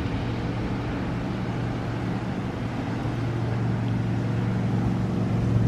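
Steady low engine hum of a motor vehicle, slowly growing louder toward the end, over a faint noisy hiss.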